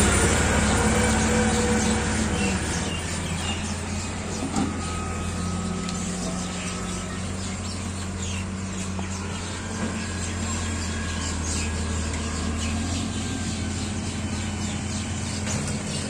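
Diesel tractor engines running steadily, the nearest one fading over the first few seconds as it moves off, with birds chirping faintly.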